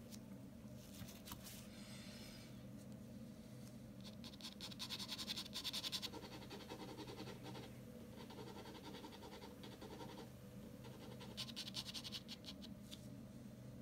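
Ballpoint pen scratching across drawing paper in rapid hatching strokes. The strokes come in spells, strongest about four to six seconds in and again near the end, with lighter strokes between.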